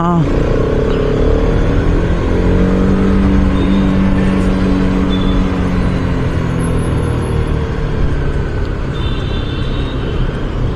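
Bajaj Pulsar RS200's single-cylinder engine running under way in slow traffic. Its note climbs over the first couple of seconds as the bike pulls away, then holds steady, over a low rumble.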